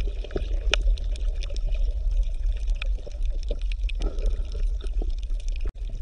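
Water gurgling and trickling, with scattered small clicks over a steady low rumble.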